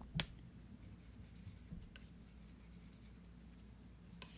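Faint taps and light scraping of a palette knife mixing oil paint on a palette, a few small clicks over a low steady room hum.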